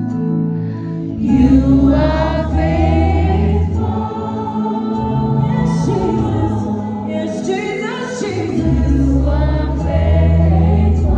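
Live gospel worship music: voices singing in chorus over a band, with deep sustained bass notes underneath. The singing comes in about a second in and runs in long phrases.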